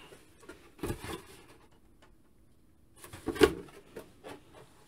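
Hard plastic toy being handled on a table, giving a light knock about a second in and then, after a quiet stretch, a short cluster of louder knocks and clatter about three and a half seconds in.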